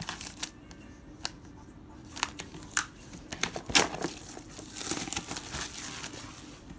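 Plastic packaging crinkling and tearing in irregular bursts with sharp clicks, as a trading-card Elite Trainer Box is unwrapped and opened.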